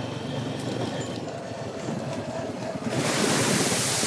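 ATV engine running through a shallow creek crossing; about three seconds in, a sudden loud hiss of tyres splashing through the water joins the engine.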